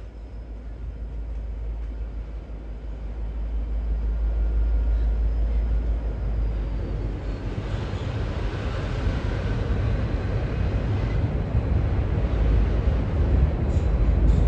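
V/Line N class diesel-electric locomotive running with its heavy engine rumble, growing steadily louder, joined from about seven seconds in by the rushing noise of the moving train.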